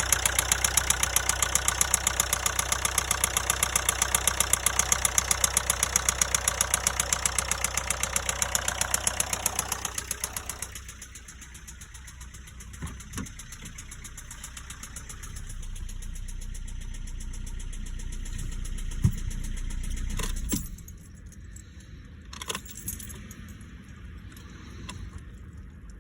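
Nissan Qashqai J10's 1.5 dCi four-cylinder diesel engine running with a loud, rapid, rhythmic knock, then cutting out about ten seconds in, leaving a low hum and a few scattered clicks and knocks. The owner takes the knock, together with white-grey exhaust smoke and loss of power, for a top-end fault rather than a bottom-end one.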